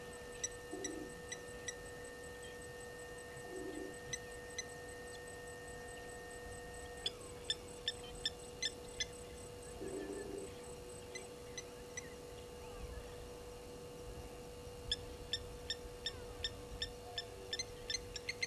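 Birds calling at a waterhole: runs of short, sharp high-pitched notes, two or three a second, with a few brief low hoots and a steady low hum underneath.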